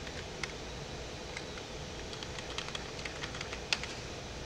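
Scattered clicks of a computer mouse and keyboard as spreadsheet cells are selected, about a dozen sharp ticks at uneven intervals over a steady low room hum.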